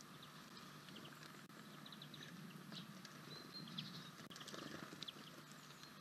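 Faint small-bird calls: short high chirps, some in quick runs of three or four notes, with a brief thin whistle about three seconds in.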